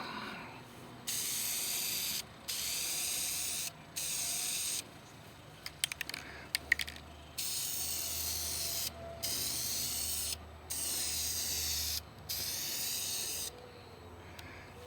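An aerosol rattle can of epoxy appliance-white paint spraying in about seven hissing bursts, each a second or so long with short pauses between. There is a short clicking rattle about six seconds in.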